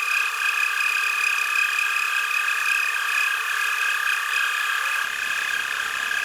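Metal lathe running with a steady high whine while taking a light two-thousandths skim cut off the outside of an electric motor's rotor, trueing its high spots so it no longer rubs and rattles in the stator.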